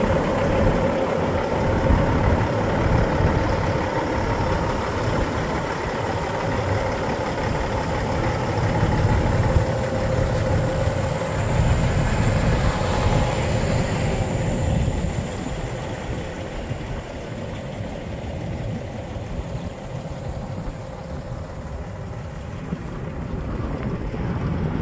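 Diesel engine of a 2008 Peterbilt 388 semi tractor idling steadily; it gets quieter about halfway through.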